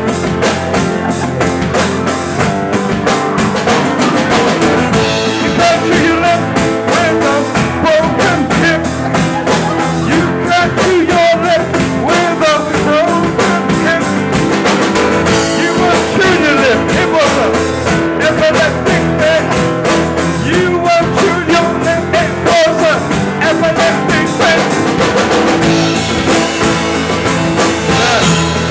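Rock-and-roll music with guitar and a drum kit, playing steadily with a regular beat and no words sung.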